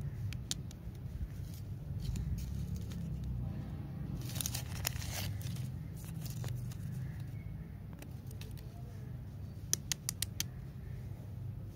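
A paper candy wrapper being peeled and crinkled by hand, with a rustling tear about four seconds in. Scattered light clicks follow, with a quick run of about four sharp ticks near the end, all over a steady low background rumble.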